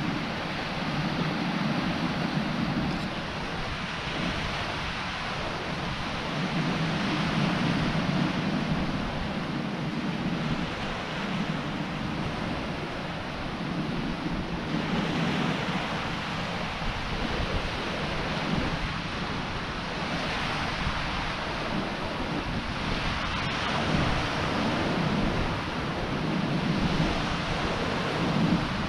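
Small sea waves breaking and washing over a beach of pebbles and boulders, the wash swelling and easing every few seconds, with wind rumbling on the microphone.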